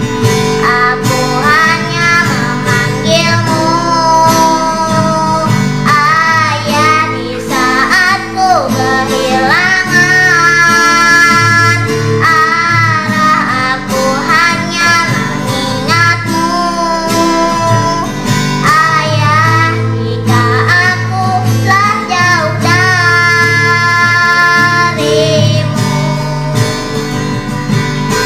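A child singing a solo ballad over a karaoke backing track led by guitar, holding long notes with a wavering vibrato.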